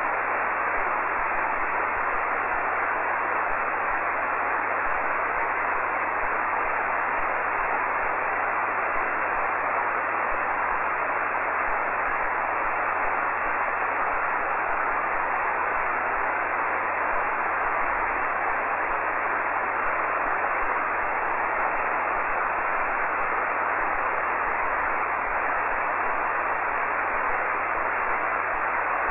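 HF amateur radio receiver on the 40-metre band putting out a steady hiss of band noise and static: an open frequency with no station coming back to the call.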